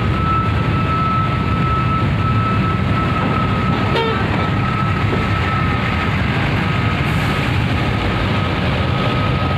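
Hino RK260 coach's diesel engine running as the bus pulls away, a steady low rumble. A thin, steady high-pitched tone runs over it most of the time.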